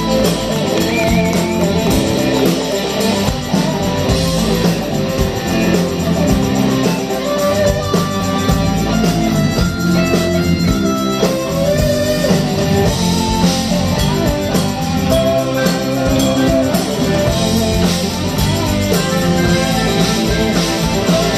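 A live rock band playing an instrumental passage, with a strummed acoustic guitar over drums and keyboards and no singing.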